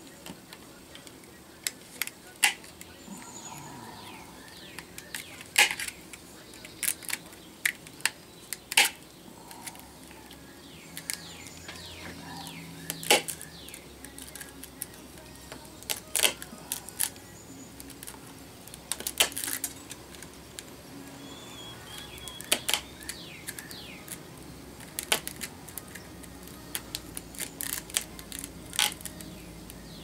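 Snips cutting through the copper wire windings of a vacuum cleaner motor's stator: sharp, irregular snaps as each wire is cut, some close together and some several seconds apart.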